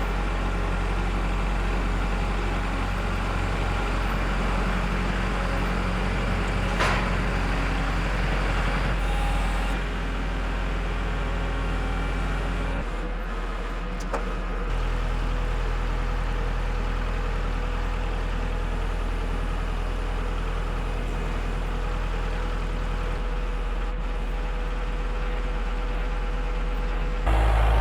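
Diesel engine idling steadily, its note shifting slightly a few times.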